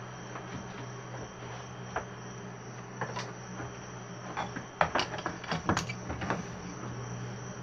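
Bristle hand brush sweeping padauk sawdust across a smooth work surface: a run of quick scratchy strokes from about three to six and a half seconds in, over a steady low hum and a thin high whine.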